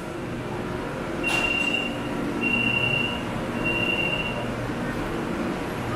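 Elevated BTS SkyTrain at a station platform: a steady low running hum, a sharp clank about a second in, then three high, steady beeps of the same pitch, evenly spaced.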